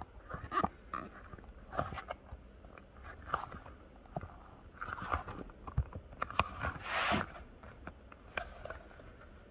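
Hands pressing and rubbing glued boat fabric flaps together on an inflatable tube: scattered scrapes, rustles and small clicks, with a longer rasp about seven seconds in.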